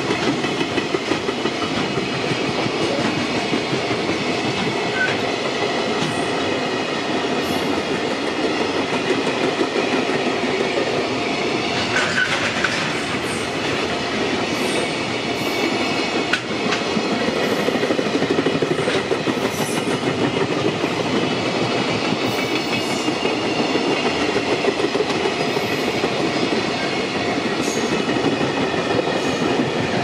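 JR Freight container train's flat wagons rolling past at close range: a loud, steady rolling noise of steel wheels on the rails, with faint scattered clicks.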